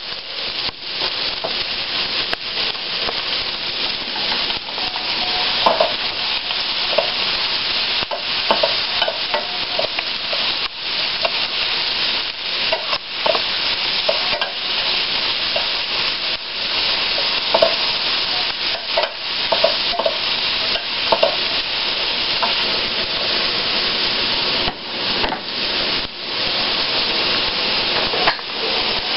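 Sliced onions sizzling steadily in olive oil in a stainless steel skillet, stirred now and then with a spoon that scrapes the pan in short strokes.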